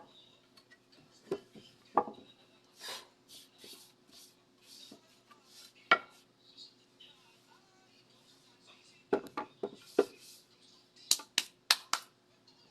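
Scattered sharp knocks and clicks of hard objects being handled and set down, with quick clusters of knocks about nine and eleven seconds in and a few short scraping strokes around three seconds in. A faint steady hum runs underneath.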